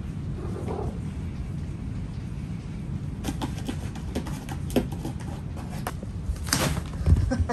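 Steady low rumble of typhoon wind and rain. From about three seconds in come a run of sharp clicks and knocks, with a louder rattle and a thump near the end.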